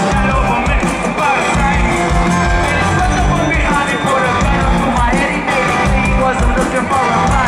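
Live rock band playing loudly through the stage PA, with a pulsing low end and some sung lines.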